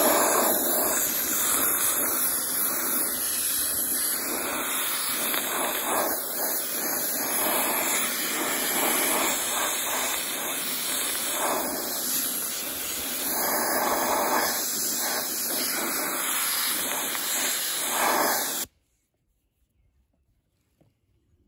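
Harbor Freight gravity-feed hand-held soda blaster spraying regular baking soda on compressed air against a rusty steel wheel: a steady, loud hiss of air and blast media that cuts off suddenly near the end.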